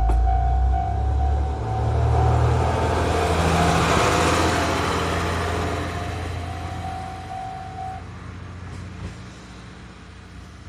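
A diesel train passing over a railway level crossing: its engine running and its wheels rolling by, loudest about four seconds in and then fading away. The crossing's warning bell rings steadily alongside and stops about eight seconds in, once the train has cleared.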